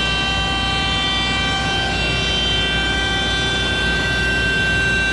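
CNC router running a cut, a steady high-pitched whine made of several tones over a low rumble. The mix of tones shifts about two seconds in.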